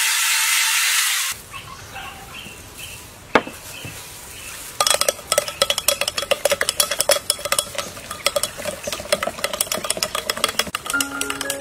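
Spoon stirring watermelon juice in a blender jug: quick, dense clinks and scrapes against the jug's sides for about six seconds, starting about halfway in. It opens with about a second of loud hiss, and light marimba-like music comes in near the end.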